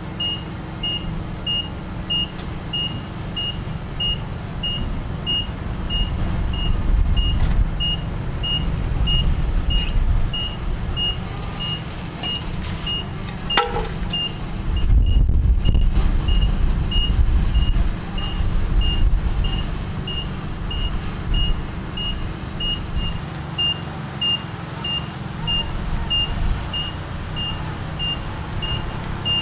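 Forklift engine running under the load of a heavy bandsaw, with its reverse alarm beeping at an even pace, about three beeps every two seconds. The engine gets louder twice, about a quarter of the way in and again just past halfway, and there is a single knock shortly before the second swell.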